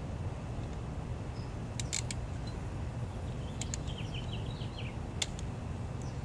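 Sharp clicks and clinks, a few seconds apart, over a steady low hum, with a brief run of high chirps about four seconds in.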